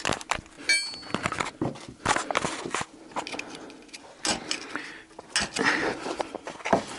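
Small knife blade prying at the retaining washers on the steel shackle pins of a car's crankcase guard: irregular metal-on-metal clicks and scrapes, with a brief high metallic ring about a second in.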